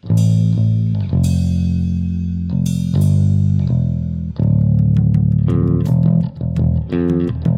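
Electric bass guitar playing held low notes under cymbal crashes, then moving to a quicker riff of short repeated notes over steady hi-hat ticks from about four and a half seconds in.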